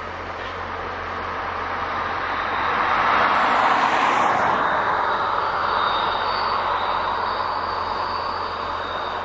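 VIA Rail Canadian passenger train rolling by, a steady rushing rumble of wheels on rail that swells to its loudest a few seconds in, then slowly fades as the train draws away. A faint high steady tone sits over it from about halfway.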